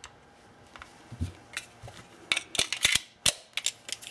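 Metallic clicks from handling a Colt 1911 pistol. First come a few faint clicks as a grip screw is snugged down with a spent cartridge case, then a quick run of sharp clicks in the last second and a half as the pistol is picked up and handled.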